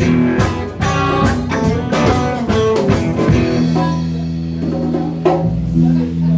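Live blues band with guitar and drum kit playing a rhythmic riff, then settling about three and a half seconds in onto a long held chord.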